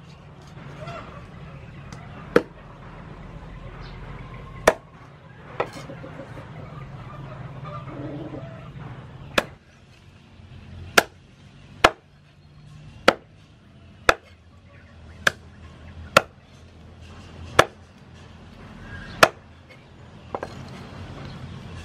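Cleaver chopping raw chicken into pieces on a thick round wooden chopping board: a dozen or so sharp chops, spaced out at first, then about one a second in the second half.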